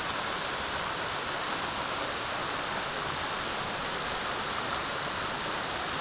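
Waterfall streams pouring down a mossy tufa cliff into a shallow pool, making a steady rush of falling water.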